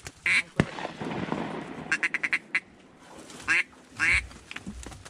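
Duck quacking: a quack near the start, a rapid run of short quacks about two seconds in, then two more single quacks. A sharp click sounds just after the start.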